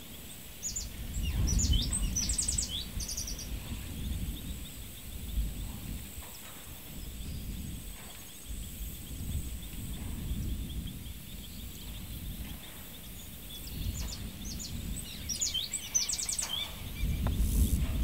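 Countryside ambience: small birds calling in short chirps and quick trills, in a cluster about a second in and again near the end, over a low rumble that rises and falls throughout.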